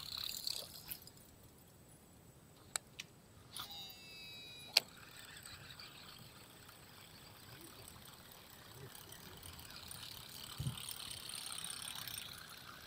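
Baitcasting reel during a cast: a brief high whine of line paying out for about a second, ending in a sharp click, with a couple of lighter clicks just before.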